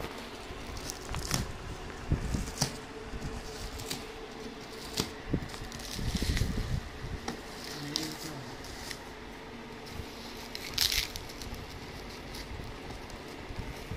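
Plastic stretch wrap on a cardboard parcel crinkling and crackling as hands handle it and pick at it, in irregular short crackles, the loudest near the end.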